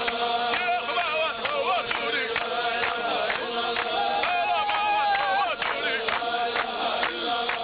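Chechen Sufi dhikr: a group of men chanting together, a lead voice moving over steady held notes, with sharp rhythmic beats about twice a second from the participants' clapping and stamping.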